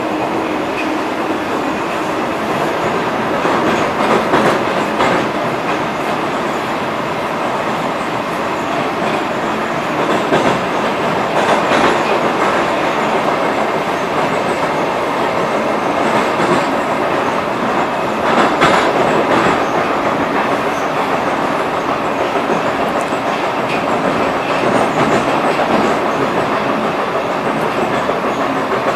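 Running noise of a Metrowagonmash 81-775 "Moscow-2024" metro train heard inside the car: a steady rush and rumble with wheel clatter on the rails. The clatter grows louder a few times.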